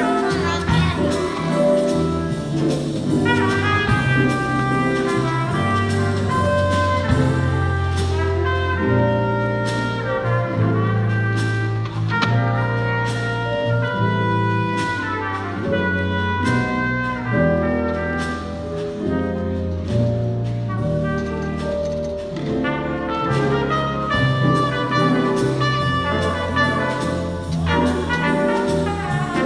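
High school jazz band playing: trumpets, trombones and saxophones together over bass and a rhythm section.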